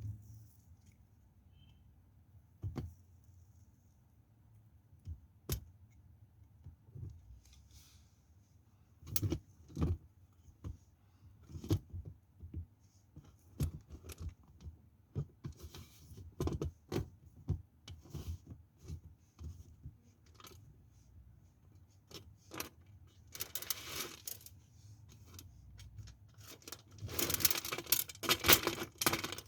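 Knife cutting into dry bar soap: sharp crunching cracks, sparse at first and frequent from about a third of the way in. Near the end they turn into a dense crackling run.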